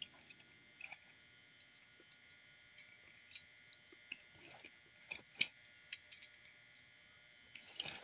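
Faint scattered clicks and light taps from die-cast toy cars being handled and set down on a cloth-covered surface, over a low steady hiss; the sharpest click comes about five and a half seconds in.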